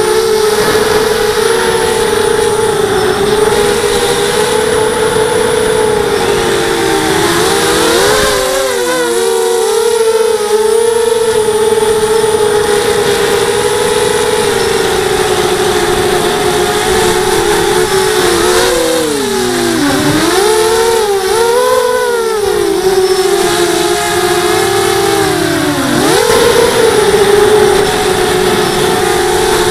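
Brushless motors and propellers of a 250-size FPV racing quadcopter whining in fast, low flight. The pitch holds steady, then dips and swings back up three times as the throttle is eased and opened again, most sharply near the end.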